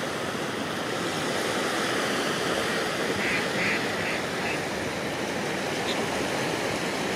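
Strong wind and waves washing against the lake shore, a steady rush, with a quick series of four quacks about three seconds in.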